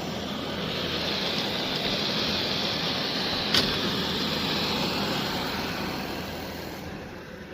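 Shark robot vacuum's suction motor running with a steady airy rush. The rush swells and then fades, with a single click about three and a half seconds in.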